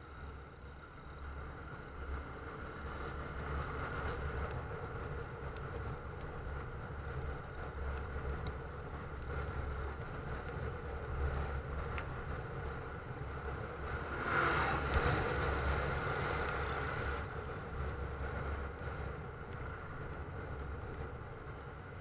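Engine and road noise from a vehicle moving through traffic, running steadily, with a louder swell about two-thirds of the way through.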